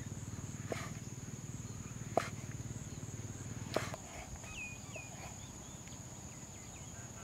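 A cleaver knocking three times on a wooden chopping block as mushrooms are sliced, over a steady low hum and a steady high whine, with a few short chirps about halfway through.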